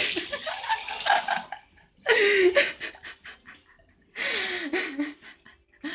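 A person burping: two short, loud burps about two seconds apart, with breathy vocal noise before them.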